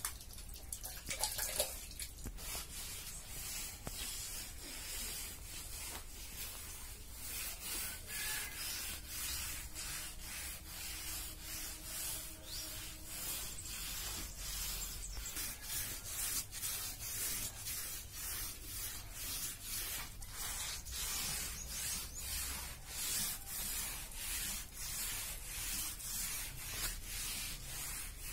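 A hand smearing a wet floor coating across a bare floor in sweeping strokes: a repeated rubbing scrape, about two strokes a second.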